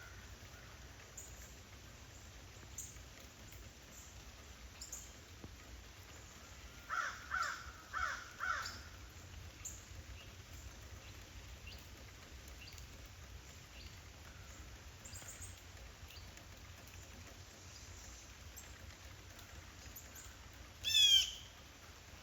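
Crows cawing, four caws in quick succession about seven to nine seconds in, over the faint steady hiss of rain. Near the end a louder, short call of quick notes from a bird.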